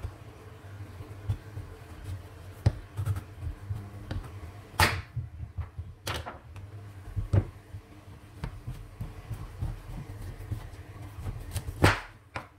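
Kitchen knife cutting through a hard green-skinned pumpkin and knocking on a bamboo cutting board: several sharp knocks, the loudest about five seconds in and again near the end, with softer clicks between.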